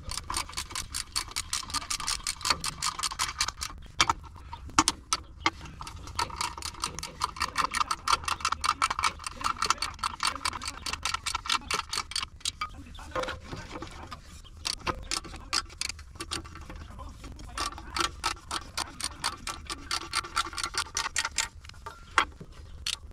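Hand socket ratchet clicking rapidly and evenly as bolts are run in, with a few short breaks where the strokes pause.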